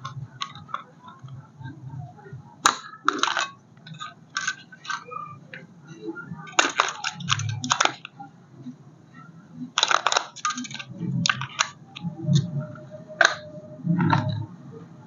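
Irregular crackling and clicking of plastic being handled, in short clusters.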